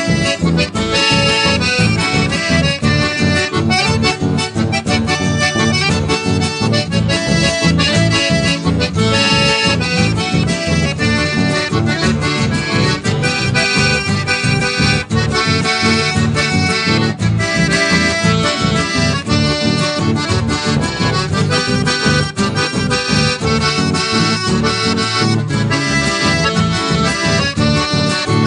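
Instrumental folk dance music led by an accordion over guitar and bass, played at a steady, even beat.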